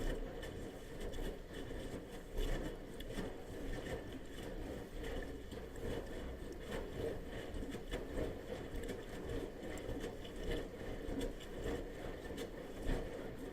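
Bosch washing machine in its wash cycle: the drum turning, with laundry and water sloshing in uneven swells and soft thumps about every second.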